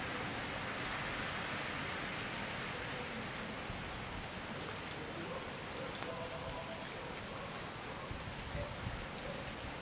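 Steady hiss of falling rain, with a few faint brief tones in the middle.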